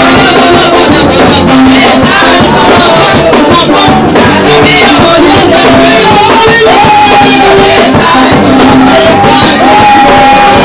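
Loud live gospel praise music: held, wavering sung notes over a repeating bass line, with hand-held tambourines shaken in a fast, steady rattle.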